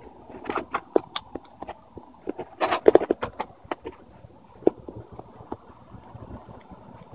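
Hands handling laptop screen parts: scattered clicks and taps of plastic, with a dense cluster of knocks about three seconds in, then only sparse ticks.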